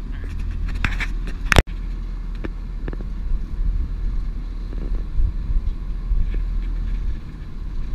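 Fishing boat's engine running steadily under wind and water hiss, with scattered small clicks. A sharp knock about one and a half seconds in is the loudest moment, followed by a split-second drop in the sound.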